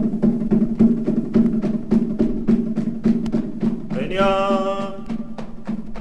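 Tahitian drumming: a fast, even beat of sharp wooden strokes over a steady low drum tone, with a voice holding one long chanted call about four seconds in.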